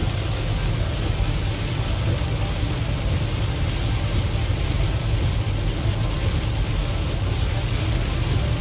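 Heavy rain hitting the windshield and roof of a moving vehicle, heard from inside the cab over a steady low rumble of road and engine noise.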